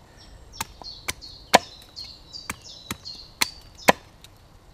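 Small axe chopping a three-sided point onto the end of a green hazel stick held against a wooden stump: about eight sharp, irregular strikes, roughly two a second, two of them louder. A small bird sings high in the background.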